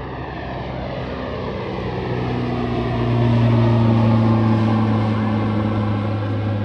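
Pilatus PC-12/47's single Pratt & Whitney PT6A turboprop and propeller climbing out at takeoff power: a steady low propeller drone with a whine above it. It grows louder to a peak about halfway through as the plane passes over, then eases, the whine sliding down in pitch as it moves away.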